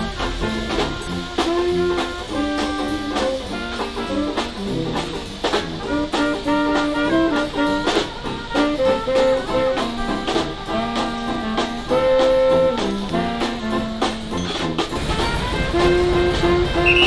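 Brass-led Dixieland jazz band playing an up-tempo tune. Near the end a low rumble comes in underneath the music.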